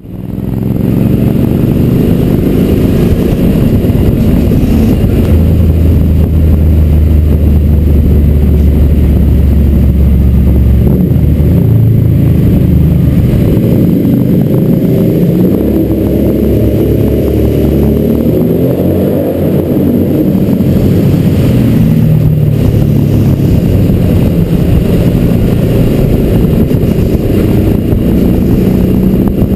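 Suzuki V-Strom DL1000's V-twin engine through a Two Brothers aftermarket exhaust, very loud inside a tunnel, its note rising and falling as the throttle opens and closes.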